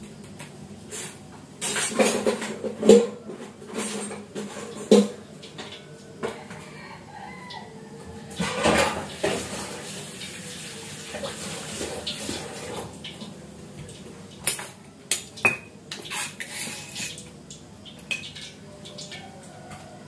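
Kitchen dishes and utensils clattering as bowls and pans are handled and set down, with several sharp knocks in the first five seconds and more clicks later on, plus a brief rushing noise about halfway through.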